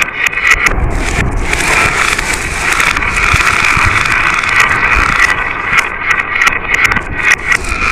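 Many marbles rolling and clattering along marble-run tracks: a steady, loud rattle full of small clicks.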